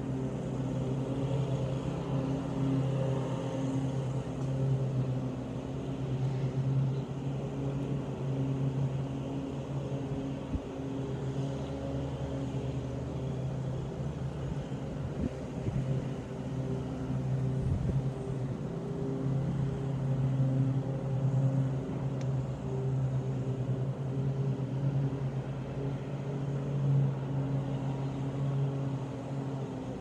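Lawn mower engine running steadily, a low drone with a few constant tones, swelling and easing slightly in loudness.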